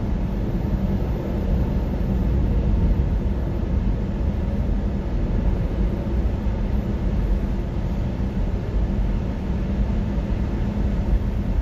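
Steady low road and tyre rumble inside the cabin of a Nissan Leaf electric car driving through a highway tunnel, with no engine note.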